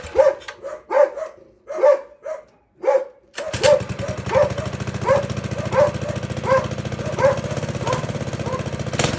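Small minibike engine being started with its new carburetor: a few short cranking attempts, then it catches about three and a half seconds in and keeps running steadily. A dog barks repeatedly, about once every second, over the whole stretch.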